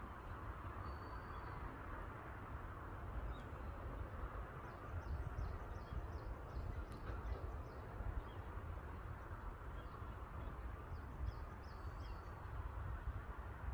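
Small birds chirping faintly in short, high clusters over a steady low rumble of wind.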